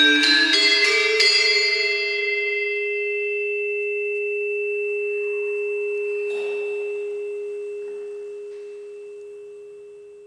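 Gamelan-style metallophone with tube resonators: a few last notes are struck in the first second or so, then the final low note rings on alone with a long sustain, slowly fading away in a reverberant room. A faint brief rustle about six seconds in.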